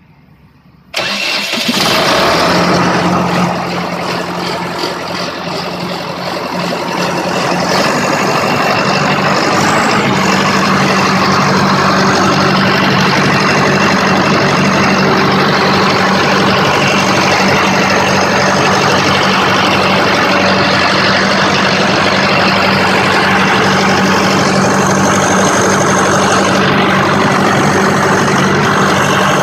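Diesel engine of a heavy wheeled machine cranking about a second in and catching, then running steadily at idle. It settles a little louder after several seconds.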